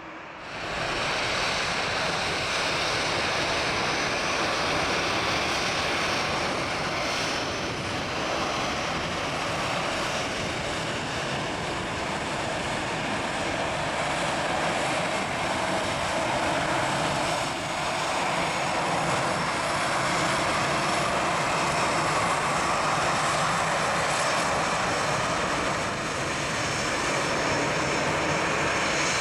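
Jet airliner engines running steadily: an even rush of engine noise with a faint high whine on top.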